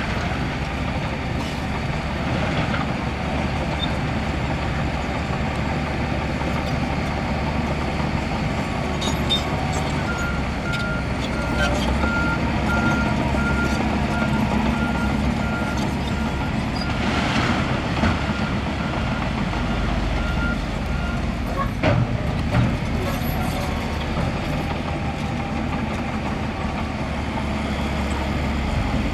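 Heavy diesel earthmoving machinery running steadily under load, with a reversing alarm beeping at an even pace for about ten seconds in the middle. A couple of sharp knocks come shortly after the beeping stops.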